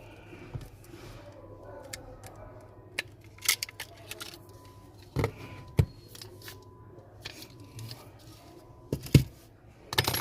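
Small clicks, taps and light scrapes of hand tools and fingers working inside an opened smartphone while its battery is taken out, a few sharp ones standing out a second or more apart.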